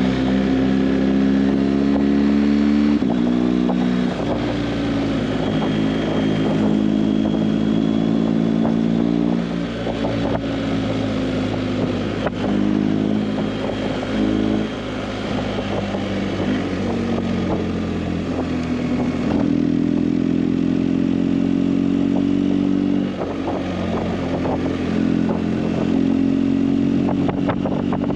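Motorcycle engine running under way, its note changing in steps several times as the bike is ridden.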